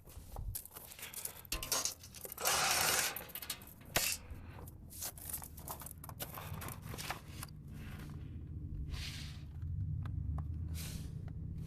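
Metal clinks, clicks and scrapes of tools and a sheet-metal air-conditioner condenser panel being handled, with a loud rasping noise about two and a half seconds in.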